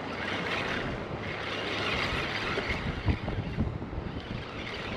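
Steady rushing noise of wind on the microphone and moving creek water, with a couple of low thumps about three seconds in.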